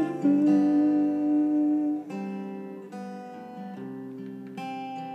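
Solo acoustic guitar playing an instrumental passage: chords are struck and left to ring, with a new chord every second or two. It gets quieter about two seconds in.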